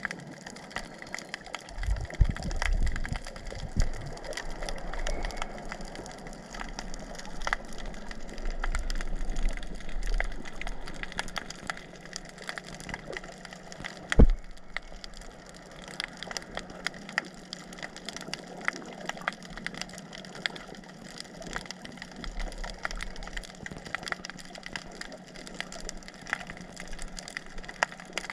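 Underwater ambience recorded by a camera below the surface: a dense, irregular crackle of sharp little clicks, with low surges of water movement now and then and one loud knock about fourteen seconds in, over a faint steady hum.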